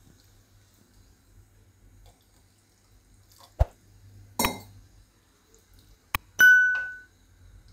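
Subscribe-button animation sound effects: a couple of sharp mouse clicks and a short rustle, then a bright notification-bell ding that rings for about half a second.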